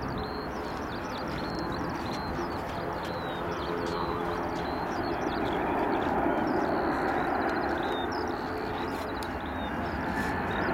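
Birds chirping over the rising rush of a Boeing 737-800's CFM56-7B jet engines on approach, the jet noise growing gradually louder.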